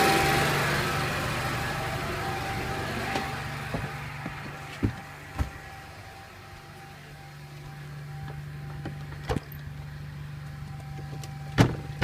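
Onan 7,000-watt Marquis generator's gasoline twin-cylinder engine running steadily while still warming up after an oil change. Its sound is loud at first and fades over the first few seconds into a quieter steady hum, with a few sharp knocks in between.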